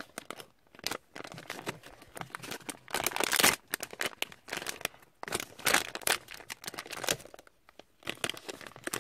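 Shiny plastic blind bag crinkled and torn open by hand: a run of crackling rustles, with the loudest rip about three seconds in and more loud crinkles near six and seven seconds.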